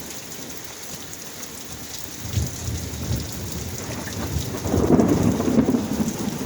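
Steady rain falling, with a rolling rumble of thunder that begins about two seconds in and builds to its loudest around five seconds in.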